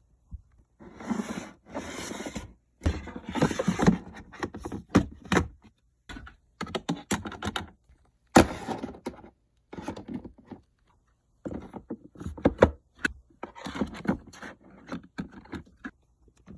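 Fidget toys being handled and sorted: an irregular run of knocks, clatters and scrapes as they are picked up and set down, with stretches of rustling between.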